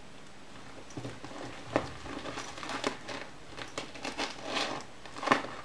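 Handbag being handled: rustling of the bag and a few short light clicks and knocks from its straps and fittings, the loudest a little under two seconds in.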